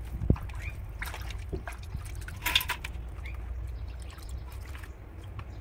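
Water splashing and dripping in a plastic tub as hands wash cut pieces of snakehead (murrel) fish, with irregular small splashes and a louder splash about two and a half seconds in.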